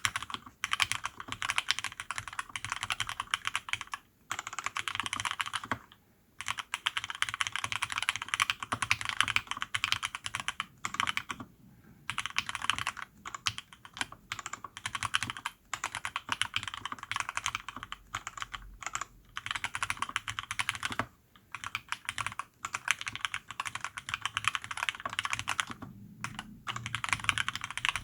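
Fast typing on a custom 65% mechanical keyboard with lubed Cherry MX Black (Hyperglide) linear switches and PBT keycaps on an aluminium plate. The typing comes in runs of rapid keystrokes with a few short pauses.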